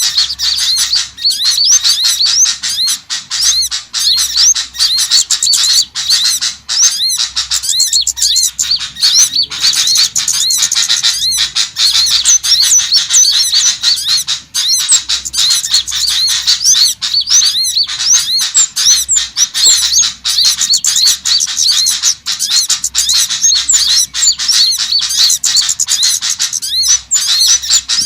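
Dense, unbroken twittering and chirping of many small songbirds, high-pitched and rapid: a bird-lure call recording made to draw small birds in.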